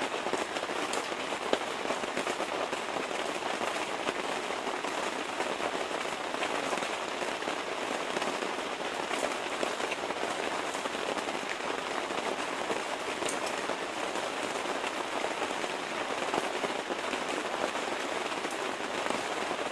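Steady rain falling on lake water and a wooden deck: an even hiss with scattered sharper drip ticks.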